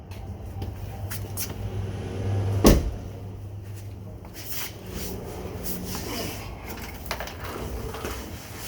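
Metal clunks and clinks of tools and exhaust hardware being worked during a cutout valve install, with a steady low hum for the first few seconds that ends in one loud clunk, followed by scattered lighter knocks.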